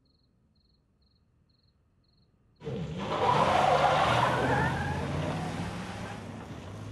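After about two and a half seconds of near silence, a minivan takes off hard with a sudden burst of tire squeal over its engine noise. The sound then fades as it drives away.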